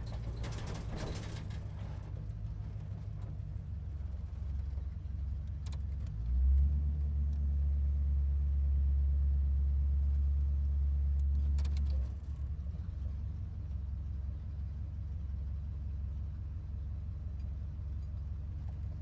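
Muscle car engine idling with a deep, steady rumble. About six seconds in it is revved up and held at a higher steady speed for about five and a half seconds, then drops back to idle.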